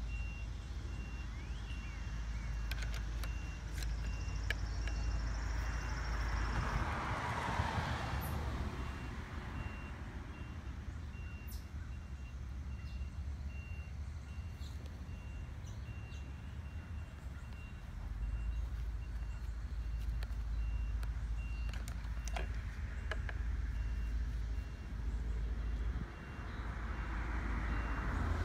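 Street traffic: a car passes about six to nine seconds in and another near the end, over a low rumble, with a faint high-pitched beeping repeating throughout.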